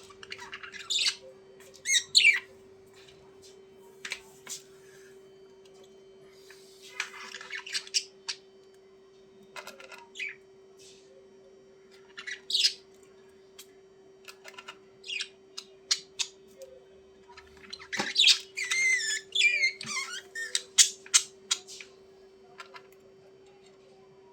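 Budgerigars chirping and squawking in short, scattered bursts, breaking into a longer warbling chatter about three-quarters of the way through. A steady low hum runs underneath.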